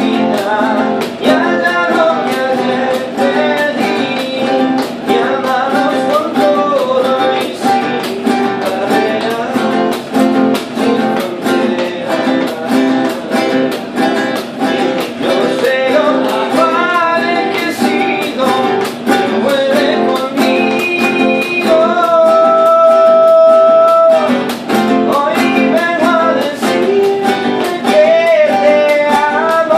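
A man singing to his own strummed acoustic guitar, the strokes keeping a steady rhythm, with one note held for about two seconds about two-thirds of the way through.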